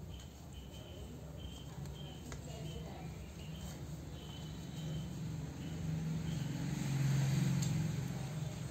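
Insects chirping in short high chirps, about two a second, over a low hum that grows louder in the second half.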